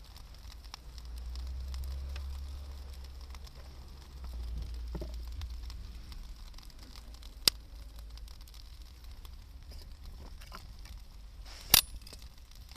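Wood campfire crackling faintly, with two sharp pops, one about seven and a half seconds in and a louder one near the end. A low rumble swells twice in the first half.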